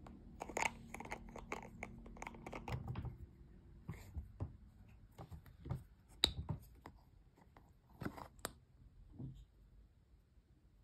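Face-mask packaging being handled and opened. A quick run of crinkles and clicks comes in the first three seconds, then a few separate sharp clicks and taps.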